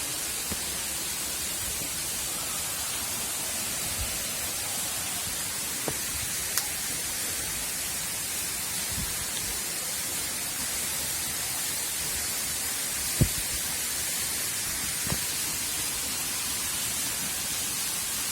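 Steady rushing hiss of a waterfall, with a few faint knocks, the loudest about thirteen seconds in.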